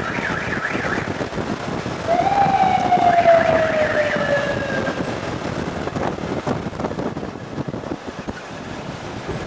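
Open jeeps driving through a road tunnel, their engines echoing, with a fast warbling, siren-like wail early on and a long slowly falling wail from about two to five seconds in. The sound thins out near the end as the jeeps leave the tunnel.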